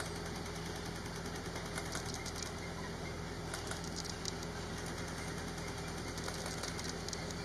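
Steady low hum of an idling safari vehicle engine, with several bursts of rapid camera-shutter clicking, about two seconds in and again about four seconds in.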